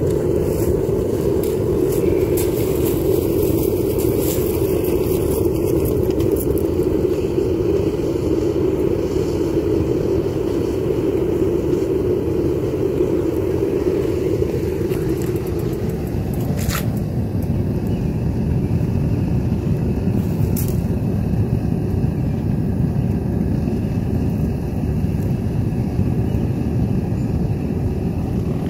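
Harbor Freight propane weed-torch burner firing a homemade foundry, a steady loud rush of gas flame. About halfway through the sound drops lower and broader, with a couple of light clicks after.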